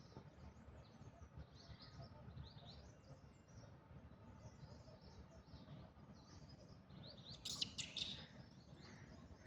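Faint bird chirps throughout, with a louder burst of sharp, high calls about three-quarters of the way through.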